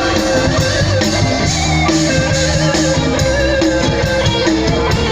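Live band playing an instrumental passage, guitar over a drum kit, loud and steady with no singing.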